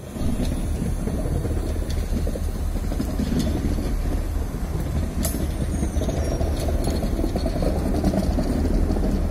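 Trem Rio-Minas passenger coaches rolling slowly along the track during shunting: a steady low rumble, with a few sharp clicks, the loudest about five seconds in.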